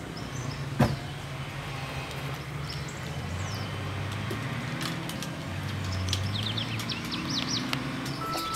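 Birds chirping, with quick falling chirps in a couple of runs, over a low steady hum, and one sharp click about a second in.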